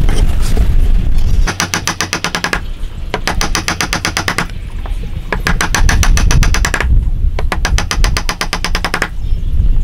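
Chisel chopping into a hardwood joint: rapid sharp taps, about ten a second, in four bursts of a second or so with short pauses between them.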